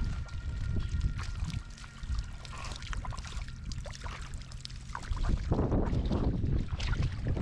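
Water splashing and sloshing in a muddy swamp, with crackling clicks. A heavy low rumble, like wind buffeting the microphone, grows louder from about five seconds in.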